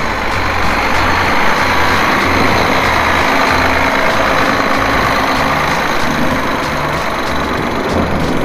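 A vehicle running on the road: steady, loud engine and road noise.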